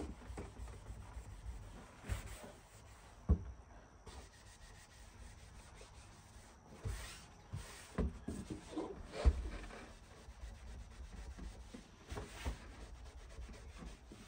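Scrubbing at stubborn grime with a Mr. Clean Magic Eraser sponge: irregular rubbing strokes against the surface, with a couple of sharp knocks about three and nine seconds in.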